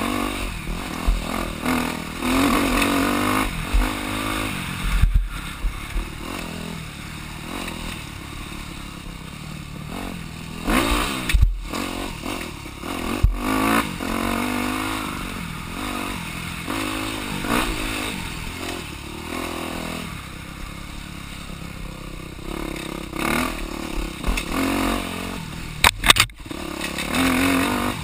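Off-road motorcycle engine revving up and down as it rides a rough woods trail, with clattering and sharp knocks from the bike bouncing over the ground.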